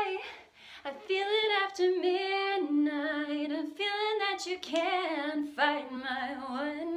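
A woman singing a cappella, unaccompanied, in phrases of held notes with a wavering vibrato.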